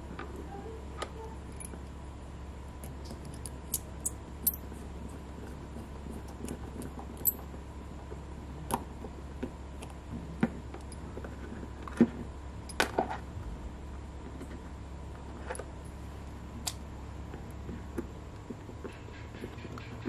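Scattered small clicks and taps of a precision screwdriver and tiny screws against a 3D-printed plastic RC axle as it is handled and screwed together, the sharpest near the middle, over a steady low hum.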